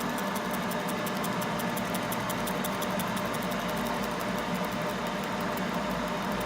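Laser separating machine running through its back-glass removal cycle: a steady hum and whir with a rapid, faint, even ticking in the high range.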